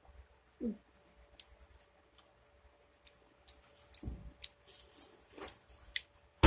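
Close-up chewing of a mouthful of Oreo ice cream bar: scattered wet clicks and mouth smacks, with a short falling hum under a second in.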